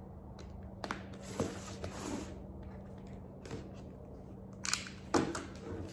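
Stanley knife cutting the tape and cardboard of a box: short scratchy slicing strokes with a few light clicks.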